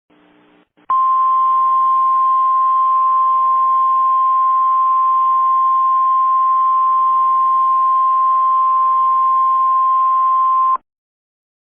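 Emergency Alert System alert tone: a single steady high-pitched tone starting about a second in and held for about ten seconds before it cuts off suddenly, the signal that comes before an alert message is read.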